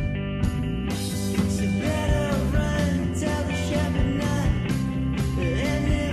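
Background rock music with guitar and a steady beat, with a sung or gliding melody line.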